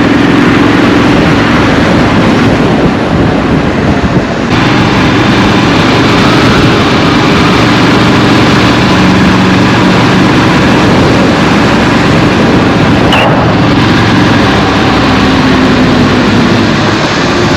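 Triumph Street Scrambler's parallel-twin engine running steadily on the move, under a constant rushing noise of wind and road.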